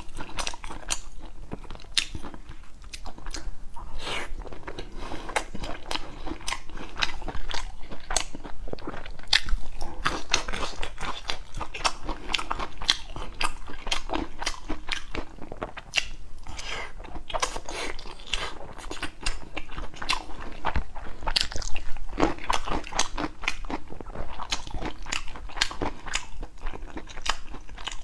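A person biting and chewing braised pork belly with the microphone close to the mouth: a dense, continuous run of short mouth clicks and smacks.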